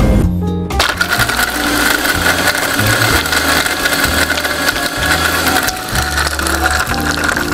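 Electric mixer grinder (mixie) running with its steel jar, grinding soaked, peeled almonds. It starts about a second in and runs steadily with a high whine over the churning.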